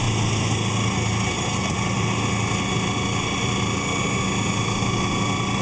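Homemade electric outboard, a 7-amp half-inch corded drill motor driving an old outboard's lower unit and propeller, running steadily and pushing the boat along at cruising speed: an even motor whine over a low hum.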